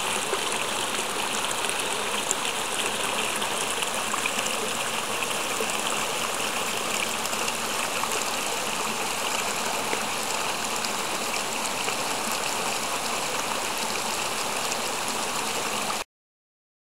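Steady splashing and trickling of water pouring into a concrete garden pond. It cuts off suddenly near the end.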